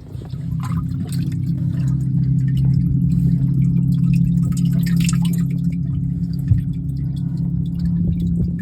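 A steady low motor hum with water dripping and trickling over it.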